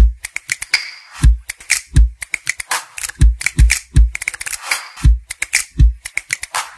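Intro music built on a percussive beat: deep kick-drum hits under sharp clicks and snaps.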